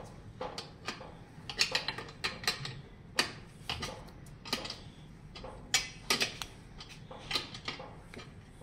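Irregular metal clicks and taps as nuts are turned along the threaded rod of a frame spreader tool with fingers and a wrench, forcing an electric balance bike's rear frame dropouts apart.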